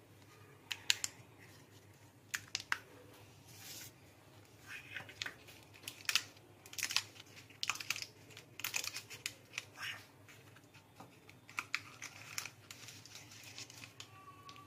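Paper cupcake liner crinkling and rustling in irregular short bursts as fingers peel it away from a chocolate tart's biscuit crust.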